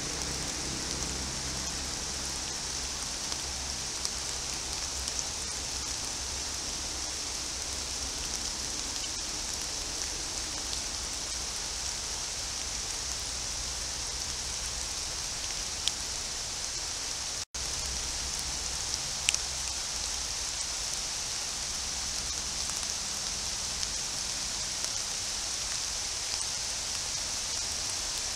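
Steady rain falling on forest foliage, an even hiss with an occasional sharp drip-like tick. The sound cuts out for an instant about seventeen seconds in, where two trail-camera clips are joined.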